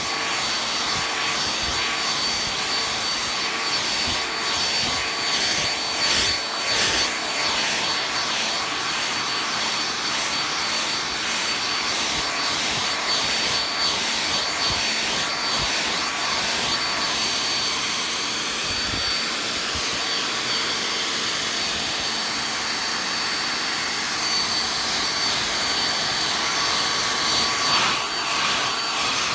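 An electric blower runs steadily, a smooth rushing noise with a constant high whine.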